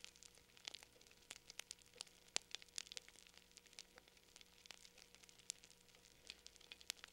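Wood fire crackling faintly, with scattered sharp ticks and pops at an irregular rate of a few per second.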